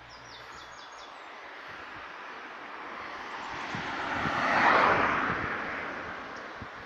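A passing vehicle: a rushing noise that swells over about four seconds to a peak a little past the middle, then fades away.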